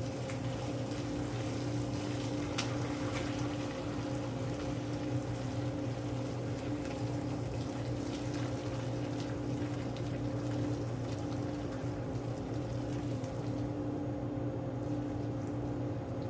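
Liquid stock pouring and splashing through a strainer into a bucket, the splashing easing off near the end, over a steady machine hum.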